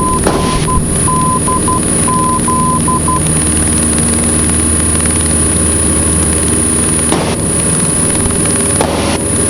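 Cessna 172N's four-cylinder Lycoming engine and propeller droning steadily, heard inside the cabin in flight. Over the first three seconds a short run of beeps at one pitch, in a dot-and-dash pattern, sounds over the drone.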